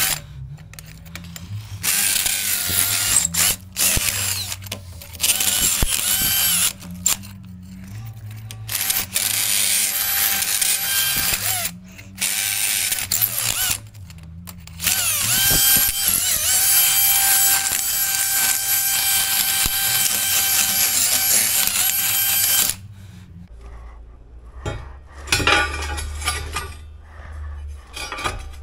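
Cordless drill with a long masonry bit boring holes into a painted concrete block wall. It runs in repeated bursts of one to three seconds with a steady motor whine, then in one long run of about seven seconds that stops about 23 seconds in. A few quieter knocks follow near the end.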